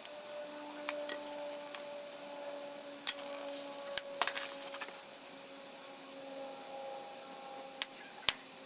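Wood fire crackling in a stainless-steel mesh fire pit, with irregular sharp pops and snaps, a cluster of them around the middle.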